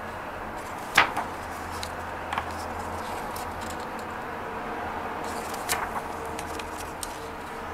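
Pages of a large photobook being turned by hand: two sharp paper flaps, about a second in and again near six seconds, with a few lighter paper ticks between, over a steady background hiss and low hum.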